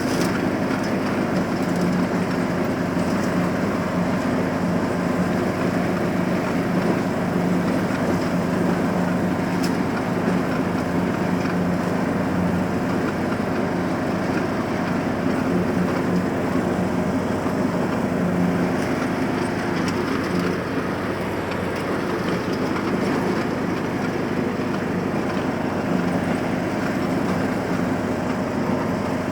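John Deere riding lawn mower's engine running steadily at a constant speed.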